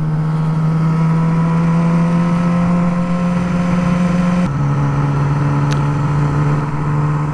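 Motorcycle engine running at a steady pitch, dropping slightly in pitch about four and a half seconds in.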